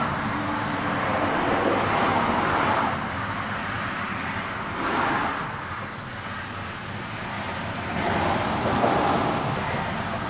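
Road traffic noise: a steady rush that swells and fades about three times.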